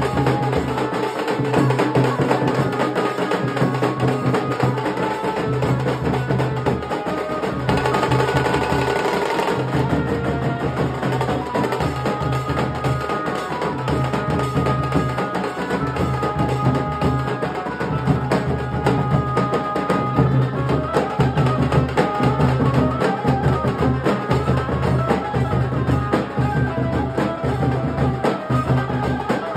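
Nasik dhol band playing: large barrel dhols beaten with sticks in a continuous, loud rhythm, with brass horns carrying a melody over the drums.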